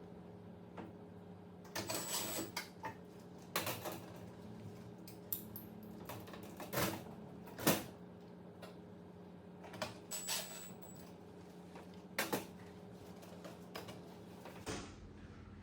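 Irregular clicks and light knocks of metal parts and tools being handled during appliance reassembly, over a steady low hum.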